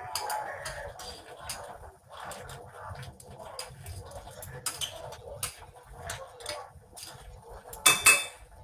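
Kitchen utensils and dishes being handled at a counter: scattered light clinks and knocks, with two louder knocks just before the end.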